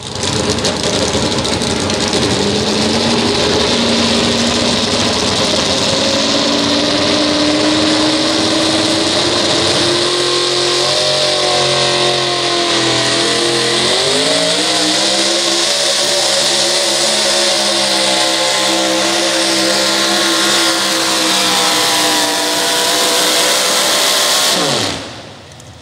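Supercharged four-wheel-drive pulling truck's engine at high revs through a pull. Its pitch climbs slowly, dips about halfway and climbs again, then falls away sharply near the end as the engine comes off.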